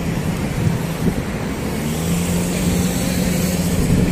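Street traffic: vehicle engines and tyres running by with a steady low engine hum that grows stronger about halfway through, over wind rumbling on the microphone.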